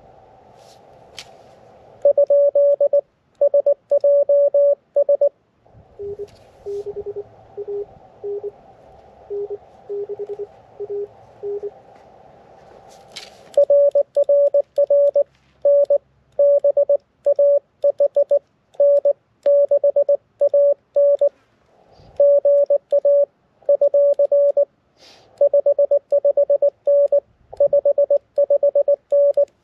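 Morse code from an mcHF QRP transceiver: the operator's own sending as a loud, high keyed sidetone beep, with the receiver hiss cut out while transmitting. Between the two stretches of sending, a fainter, lower-pitched morse signal comes in over the band hiss.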